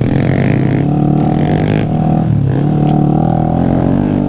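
Small 125cc single-cylinder minibike engine running at a fairly steady speed, its pitch dipping briefly about two and a half seconds in.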